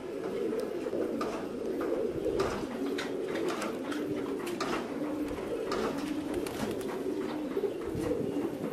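Caged fancy pigeons cooing, many low calls overlapping continuously, with scattered short clicks.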